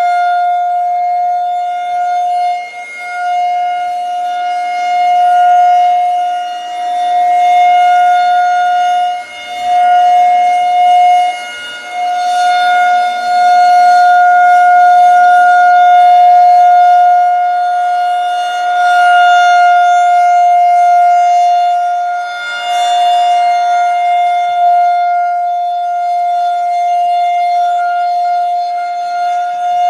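Federal Signal 2001-130 rotating electromechanical outdoor warning siren sounding the Alert signal: one steady, unwavering tone. Its loudness swells and fades every several seconds as the rotating head sweeps past.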